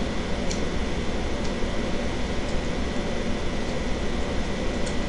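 Electric dog grooming clippers running with a steady buzz as they trim the fur around a cocker spaniel's rear, with a few faint ticks.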